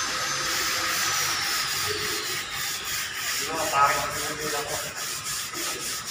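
Sandpaper rubbed by hand over a plastered wall, a dry rasping that settles into quick, even back-and-forth strokes.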